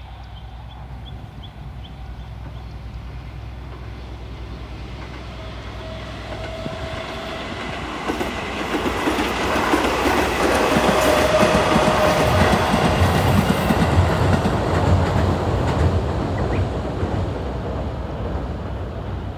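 Tobu 20400 series electric commuter train approaching and running past on double track, with a rumble and a rhythmic clatter of its wheels over the rail joints. The noise builds steadily, is loudest for several seconds in the middle as the cars pass, then fades as the train draws away.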